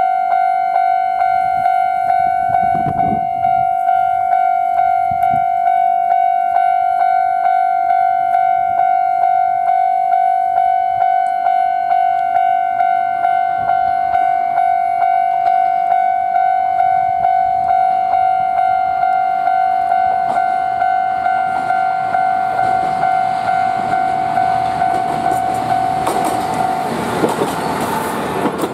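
Level-crossing warning bell ringing steadily, about two strokes a second. Over the last several seconds a diesel railcar hauling old passenger coaches comes close and passes, its wheel and engine noise building until it is the loudest sound.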